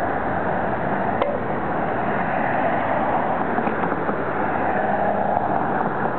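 Steady rushing of wind over a small camera's microphone on a moving bicycle, mixed with street traffic, with a faint click about a second in.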